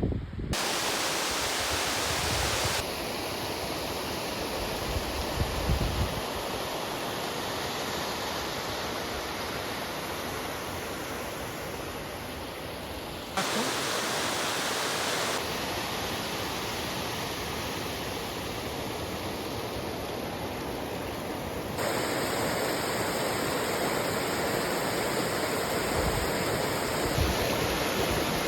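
Rushing water of a mountain stream, a steady even rush whose level and tone jump abruptly several times as the shots change.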